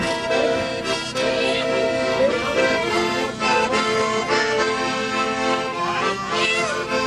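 Accordion music: a traditional-style tune played in held chords that change every second or so.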